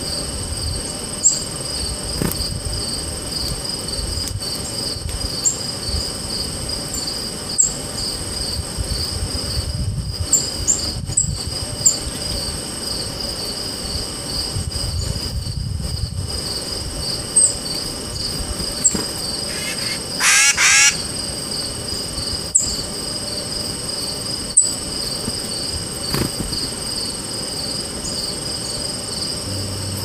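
Black-capped chickadee and tufted titmouse giving alarm calls: short, high, thin falling notes scattered through, and a brief, rapid, harsh call series about twenty seconds in. A steady pulsing insect chorus, crickets, runs underneath.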